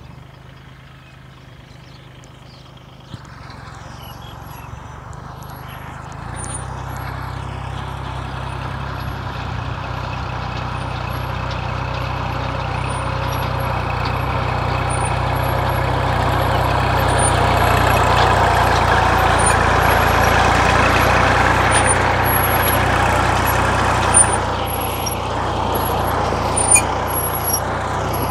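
Kubota L3608 tractor's diesel engine running steadily under load as it pulls a six-disc plough through dry soil, growing steadily louder as it approaches and passes close by. A few sharp clicks come near the end.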